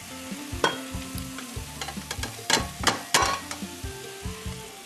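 Eggs sizzling in hot oil in a frying pan, with several sharp clicks and scrapes of a spatula against the pan, the loudest a little past halfway.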